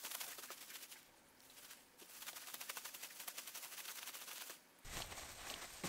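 Thin plastic bag rustling and crinkling as fish fillets are tossed in breading inside it: a short spell of rapid crackling, a pause of about a second, then a longer spell. A low rumble comes in near the end.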